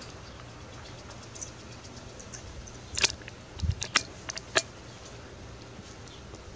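A quick series of sharp mechanical clicks and rattles, five or six of them between about three and four and a half seconds in, over a faint steady low hum.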